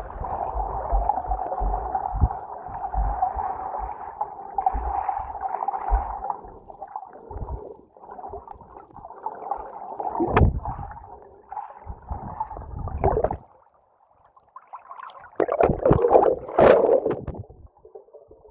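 Muffled underwater sound picked up by a camera held below the lake surface: water gurgling and sloshing around the camera with low knocks and thumps. A steady drone for the first several seconds gives way to scattered thumps, a short lull, then a loud burst of splashing near the end.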